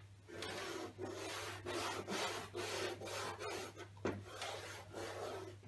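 Stick of chalk scraping on a blackboard in short repeated strokes, about two a second, as a drawing is filled in.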